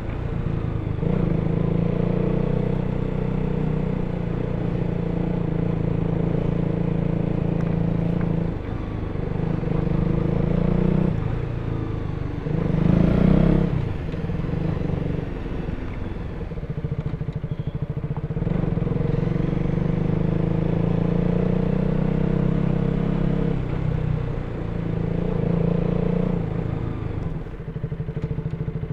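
KTM RC 200's single-cylinder engine running through its stock exhaust on the move, the note rising and falling with the throttle, with a brief louder burst of revs about thirteen seconds in.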